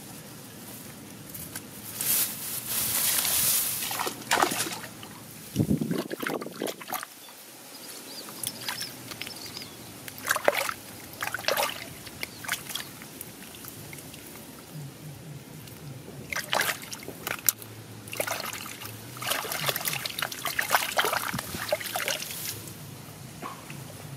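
Hands splashing and sloshing in shallow muddy water among grassy plants, in a series of irregular short bursts.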